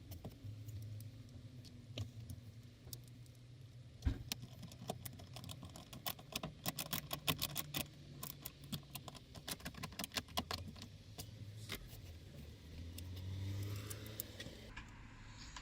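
A quick run of small clicks and light rattles, thickest in the middle, from screws, tools and plastic dashboard parts being handled while the instrument cluster surround is refitted, over a low steady hum.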